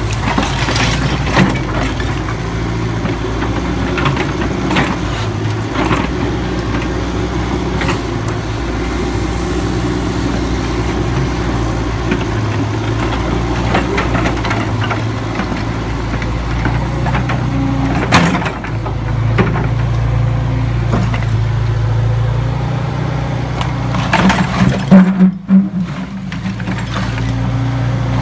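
Diesel engine of a Liebherr wheeled excavator running steadily while its bucket scrapes through demolition rubble, with scattered knocks and clatter of broken concrete, bricks and roof tiles. A louder burst of clattering rubble comes near the end.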